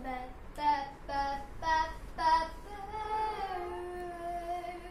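A young girl singing wordlessly: four short notes, then one long held note that slides lower partway through.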